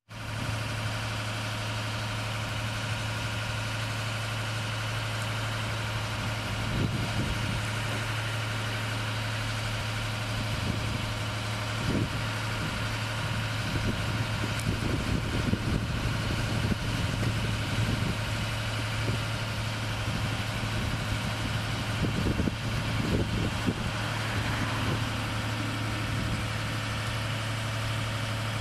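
Engine of a boom lift idling steadily with a constant low hum, a few irregular low bumps over it.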